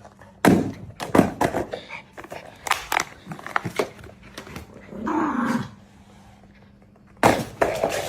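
A dog's short vocal sound, falling in pitch, about five seconds in, amid a run of sharp knocks and thumps.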